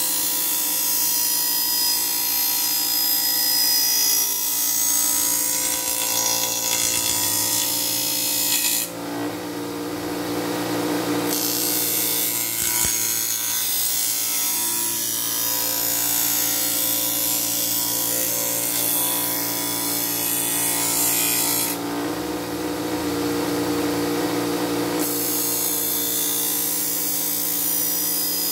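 Bench grinder motor running with a steady hum while a steel machete edge is ground on its waxed MDF wheel, a continuous high grinding hiss. The grinding drops out twice for a few seconds, about nine and twenty-two seconds in, leaving only the motor's hum.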